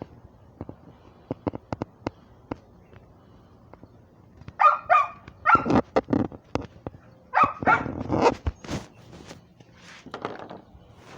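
Light clicks and taps for the first few seconds, then a dog barking in short runs of loud barks from about four and a half seconds in until near the end.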